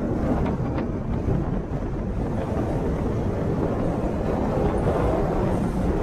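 Steady rush of wind and road noise from a moving car, with wind buffeting the camera's microphone.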